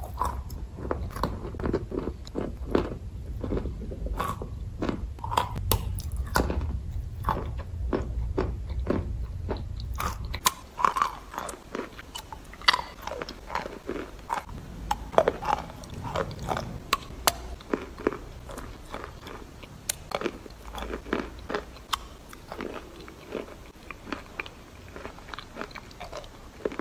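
Close chewing and crunching of sawn chalk: many sharp crunchy bites over a low hum. About ten seconds in, the hum stops and the sound changes to biting and chewing a chalk stick coated in wet clay paste, still with sharp crunches between the chewing.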